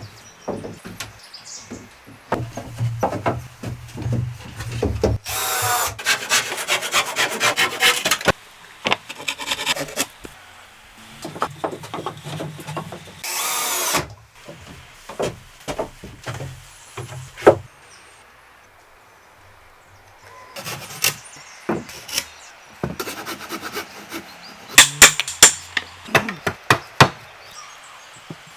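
Woodworking on timber: sawing and rubbing strokes and sharp knocks on wood, broken by two short bursts of a power drill whining. The knocks come loudest in a quick cluster near the end.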